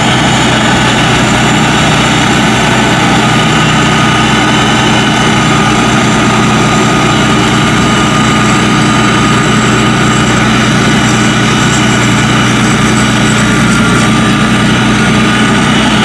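Kaset Pattana tracked rice combine harvester running steadily under load as it cuts and threshes rice: a loud, even engine drone with a steady high whine.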